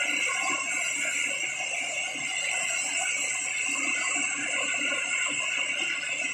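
Compressed natural gas jetting from a leaking pipeline with a steady, high hiss that does not let up.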